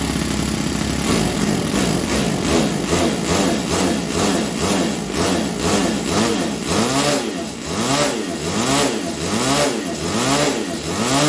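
Bored-out OS FS-40s four-stroke glow model engine running on a dyno, a loud, fast buzz. In the second half its pitch swings up and down in a regular rhythm about twice a second.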